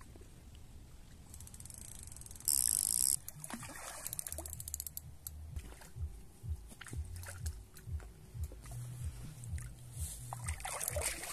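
Water sloshing and splashing at the edge of a lake. About two and a half seconds in there is a short, loud hiss, and through the second half a run of low knocks.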